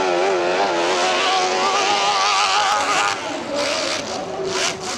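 Dirt bike engine revving hard, its pitch wavering up and down as the throttle works, then dropping lower and quieter about three seconds in.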